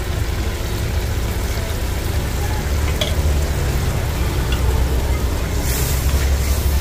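Spinach and tomato masala cooking in a pan, a steady sizzle over a low rumble, with a brief louder hiss near the end.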